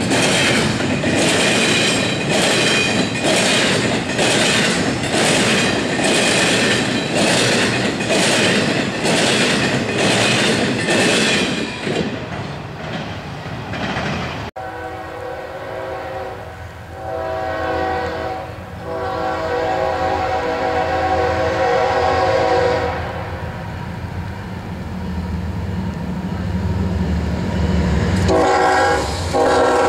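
Freight train cars rolling past, wheels clicking over the rails in a steady clickety-clack. Then a locomotive's air horn sounds a chord in several blasts, the last one long. The deep rumble of the diesel locomotive's engine follows, with a short horn blast near the end.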